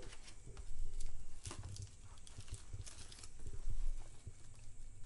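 Paper and cards being handled and sorted at a shop counter: irregular rustles and light clicks over a low rumble.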